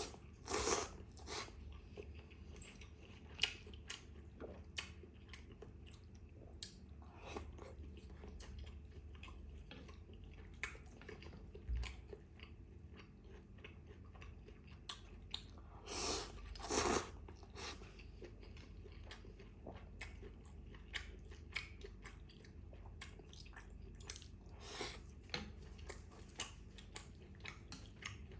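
Close-miked chewing and biting of bún trộn bò (rice vermicelli with beef, herbs and crunchy toppings), with wet mouth clicks and crunches coming at irregular moments. The loudest bites come about half a second in and again around 16 to 17 seconds in.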